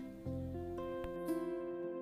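Background music: a plucked string instrument playing a melody of single held notes.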